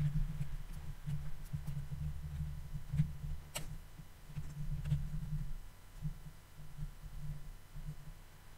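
A low, uneven, throbbing rumble picked up by a desk microphone, with a few sharp computer mouse clicks, the sharpest about three and a half seconds in.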